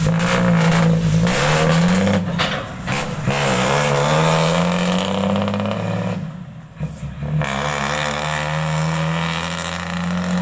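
Combine harvester's diesel engine with a loud exhaust, revving up and down under load as the machine climbs onto a trailer. The engine note dips briefly about six seconds in, then holds steady and slowly rises.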